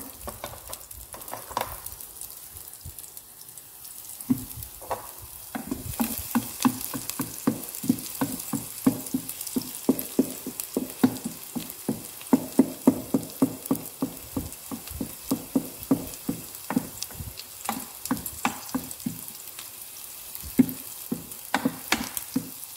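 Chopped onions sizzling in hot oil in a nonstick pot as they fry toward brown, stirred with a wooden spatula. The spatula scrapes and knocks against the pan, a few strokes early on, then about three quick, regular strokes a second from about five seconds in.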